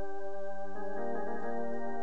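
Electronic keyboard playing sustained, organ-like chords, changing chord about three-quarters of a second in and again around the one-second mark.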